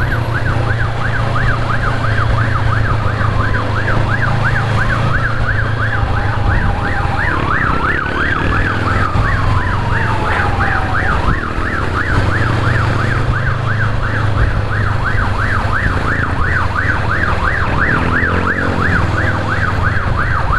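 Emergency sirens from an ambulance and its SAMU motorcycle escort coming up from behind. One siren runs a fast yelp the whole time; a second siren wails slowly up and back down once, in the middle. Under both is the steady low drone of the motorcycle's engine and wind.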